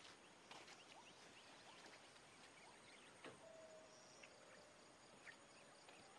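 Near silence of open country with faint, scattered bird chirps and calls, one held note in the middle, and a couple of soft knocks.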